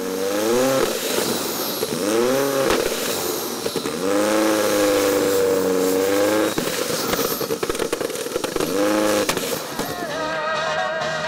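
A rally car engine revs hard four times, each rev climbing in pitch and then falling back, with a few sharp pops in between. A warbling electronic tone comes in near the end.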